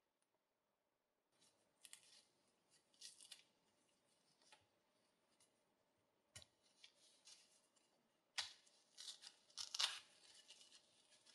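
Handling noises from old binocular parts in gloved hands: scattered scratchy rubs and a sharp click a little past halfway, then louder crackling scrapes near the end as the brittle old covering is peeled off a binocular barrel tube.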